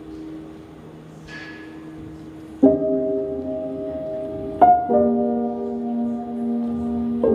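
Slow, soft music for a contemporary dance solo. A quiet held chord opens it, then deep struck chords come in about two and a half seconds in, again two seconds later and once more near the end, each ringing on.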